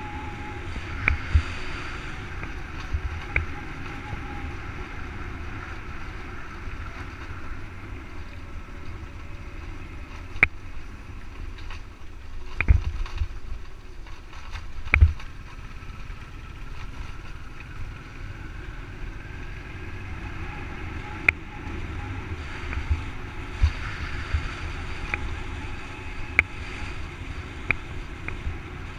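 Steady wind rush and low road rumble from a camera riding on a moving vehicle, with scattered sharp knocks as it jolts over bumps and potholes; two loud jolts come around the middle.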